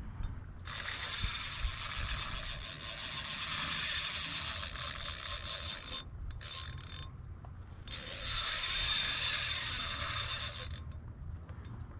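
Spinning reel working with a fast mechanical whir in two long stretches, about five seconds and then about three, with a short break between.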